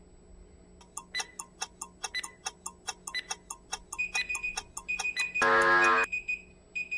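Workout interval-timer countdown sound effect: fast, even clock-like ticking, with short high beeps joining about four seconds in, then a loud buzzer for about half a second that marks the end of the work interval.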